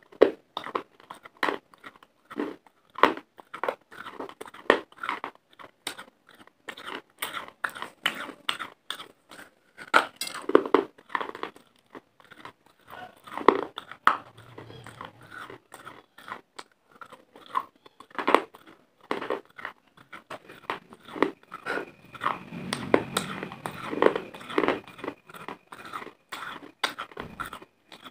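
Close-miked crunching and chewing of dry clay pieces: a long irregular run of short crisp crunches, growing denser and more continuous a few seconds before the end.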